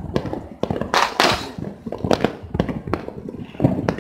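Dense, irregular pops and bangs of firecrackers and fireworks going off one after another, with a hissing burst about a second in.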